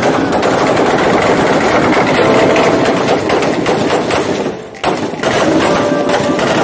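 Sustained, rapid automatic gunfire, loud and densely packed, with a brief lull a little over four seconds in before it resumes.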